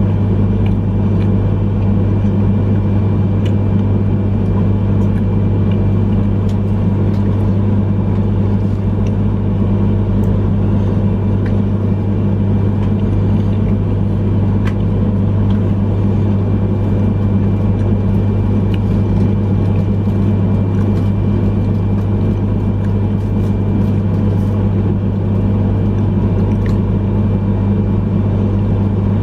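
Steady low hum of a Yamagata Shinkansen train standing at a station, its onboard equipment running while it waits, heard inside the passenger car. A few faint ticks sound here and there over the hum.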